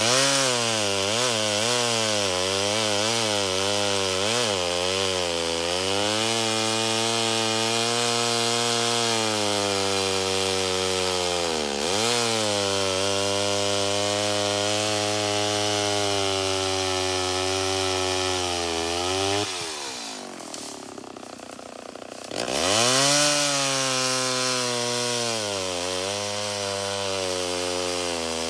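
A 1970s Homelite XL-12 two-stroke chainsaw cutting into a white oak log. Its revs rise and fall for the first few seconds, then it runs steadily under load with one brief dip. About twenty seconds in it drops back to a low idle for a couple of seconds, then revs up again and cuts on.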